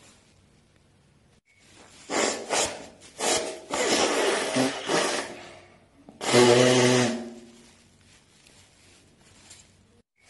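A person blowing their nose into a tissue: several short, noisy blows from about two seconds in, then one longer, louder blow with a pitched nasal tone about six seconds in.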